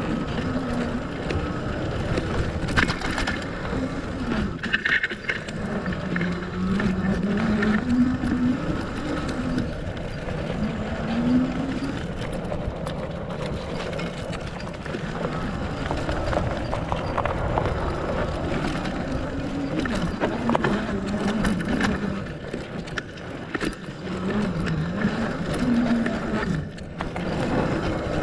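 Fat bike riding over a dirt forest trail: tyres rolling with a steady rumble and a hum that rises and falls with speed, plus scattered rattles and knocks from bumps.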